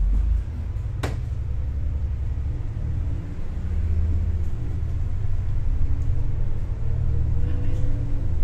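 Double-decker bus running, heard from inside the upper deck: a low engine rumble whose note rises near the end as it speeds up. A single sharp click about a second in.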